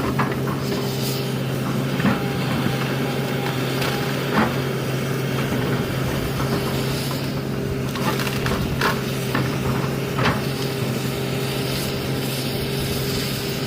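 Excavator's diesel engine running steadily while it works, with a few short, sharp knocks from the machine at work.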